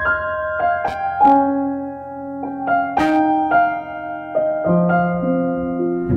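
Background music: a piano playing a slow melody of single sustained notes and chords.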